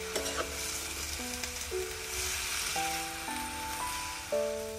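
Water spinach (kangkong) sizzling in a metal wok over a wood fire while a metal spoon stirs it.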